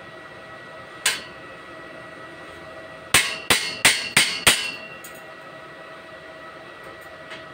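Hammer blows on a steel tube frame: one knock about a second in, then five quick strikes over about a second and a half, each ringing briefly.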